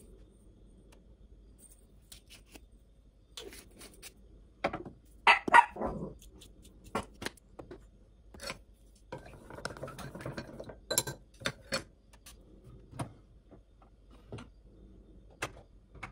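Dishes and utensils being handled: irregular clinks, knocks and clicks, with a louder ringing clink about five seconds in and a stretch of scraping around the middle.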